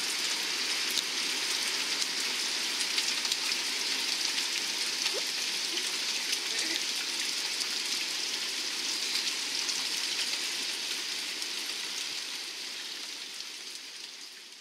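Heavy rain falling steadily, an even dense hiss, fading out over the last few seconds.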